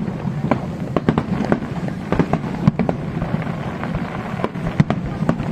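Fireworks display: a dense, irregular string of sharp bangs from shells bursting one after another, over a constant low din.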